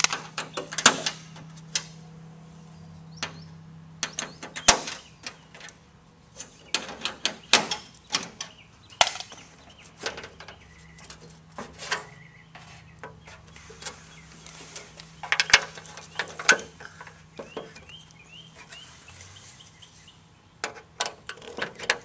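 Irregular clicks, taps and knocks of hands working on a dragster's body panel and its fittings, over a steady low hum, with a few bird chirps near the end.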